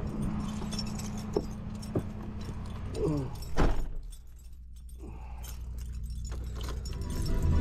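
A bunch of keys jangling on their ring while someone climbs into a Ford van's driver's seat, with sharp clicks and a heavier thump about three and a half seconds in, over a steady engine hum that is more muffled after the thump.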